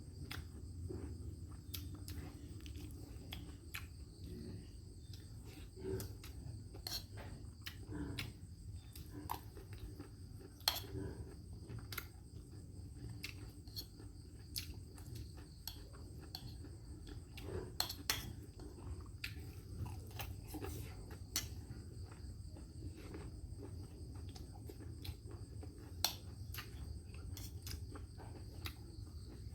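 Crickets chirping steadily, with scattered short clicks and taps from people eating a rice meal.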